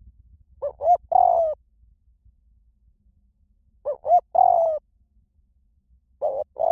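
Spotted dove cooing: three repeated phrases about three seconds apart, each two short notes followed by a longer, slightly falling coo. The last phrase runs on at the end.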